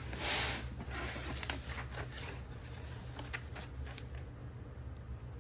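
Cardboard box flaps and paper rustling as a shipping box is opened and its paperwork handled, loudest in the first second, then softer rustling with a few small taps.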